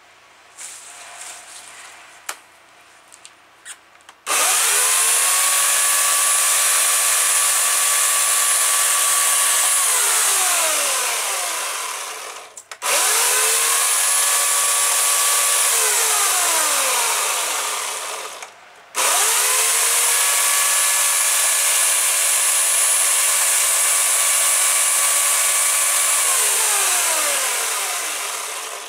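Homelite electric chainsaw triggered three times as it cuts small leafy branches. Each time the motor whines up to speed, runs steadily for several seconds, then winds down with a falling pitch as the trigger is let go. A few light clicks and rustles come before the first run.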